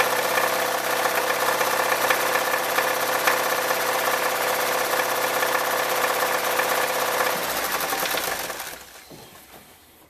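Ford 1.9-litre four-cylinder engine idling with a knock from the bottom end, diagnosed as a rod-bearing or piston knock on number one cylinder. The engine is switched off about seven and a half seconds in and runs down.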